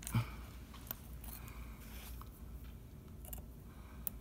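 Faint, scattered small clicks and scrapes of a knife point working on a rifle's trigger assembly, prying at its retaining C-clip, with a short knock just after the start.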